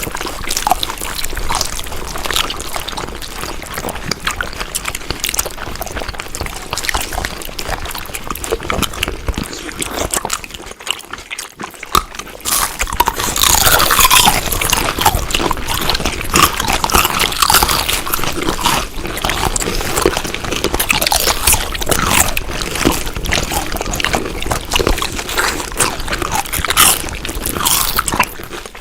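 Wet chewing and eating sounds: a dense run of smacks and crunchy clicks. It drops off briefly about eleven seconds in, then comes back louder.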